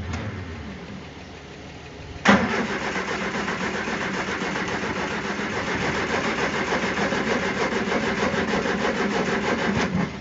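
Triumph Spitfire's four-cylinder engine being cranked by its starter with the throttle held open. The cranking starts suddenly about two seconds in, runs as a steady, even pulsing for about eight seconds without the engine catching, and cuts off just before the end.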